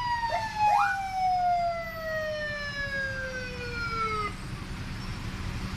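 Police car siren winding down in one long falling wail of about four seconds, with two short rising yelps near the start. A steady low engine and street rumble runs underneath.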